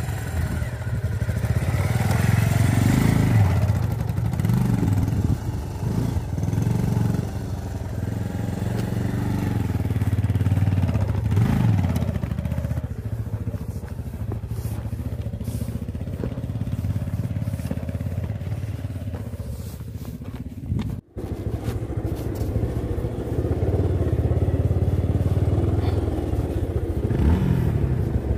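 Single-cylinder motorcycle engine running in low gear on a rough dirt trail, its pitch rising and falling as the throttle is opened and closed. The sound breaks off for an instant about three-quarters of the way through.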